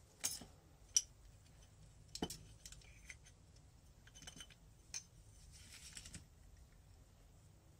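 Scattered light metallic clicks and clinks as a motorcycle clutch basket and other engine parts are handled on a workbench, with a few brief rustles between; the sharpest click comes about a second in.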